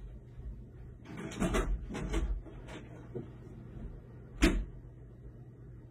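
A few clattering knocks, then one sharp knock about four and a half seconds in, like things being handled or a cupboard or door shutting in a small room.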